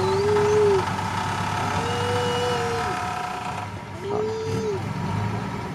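Dump truck's diesel engine running while the raised tipper bed empties its load of soil, a steady hum whose higher whine cuts off about two-thirds of the way in. A drawn-out rising-and-falling tone comes three times, about two seconds apart.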